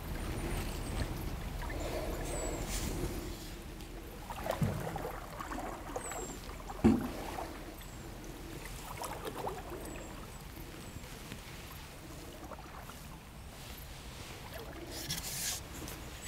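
Wooden rowboat being worked along a still river with a long wooden oar: soft water swishing and trickling around the oar and hull. A knock about seven seconds in is the loudest sound, with a smaller one a little before it.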